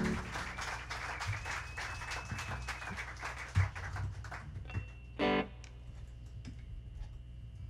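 Faint guitar sounds as a piece dies away: a held note fading, scattered string and handling clicks, and one short plucked note about five seconds in.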